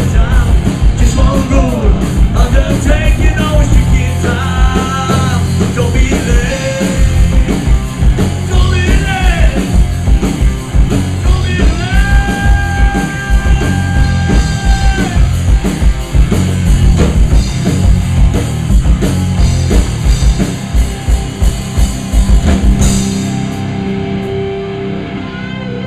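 Rock band playing a song with drum kit, electric guitar and a singer, who holds one long note about halfway through. Near the end the drums stop and a guitar chord is left ringing.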